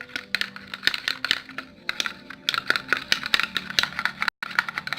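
A utensil stirring white glue in a small container, giving rapid, irregular clicks and scrapes against the container's sides.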